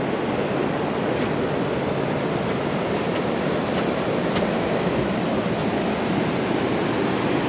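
Steady rush of ocean surf breaking over a low-tide reef, mixed with some wind.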